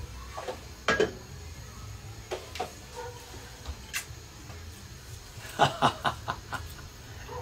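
A man laughing in a quick run of short bursts about three-quarters of the way in, with a few light knocks and clicks of kitchen handling before it.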